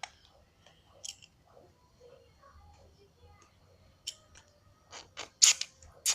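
Handling noises from working with slime and a bottle of hand-sanitiser gel: scattered sharp clicks and crackles that grow busier and louder in the last two seconds.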